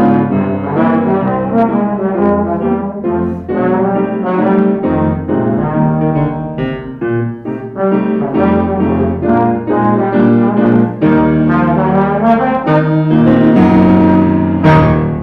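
Trombone playing a melody with grand piano accompaniment, note after note, then holding a long, loud note near the end.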